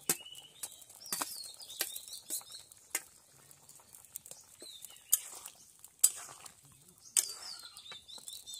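Metal spatula clinking and scraping against a steel plate and a kadai as soya chunks and eggs are slid into simmering curry and stirred, in sharp clinks about a second apart. Small birds chirp in quick twittering runs between the clinks.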